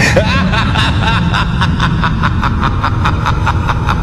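Motorcycle running along the road with wind noise, under a steady low rumble. Sharp clicks repeat about five times a second, and a few short chirps sound in the first second.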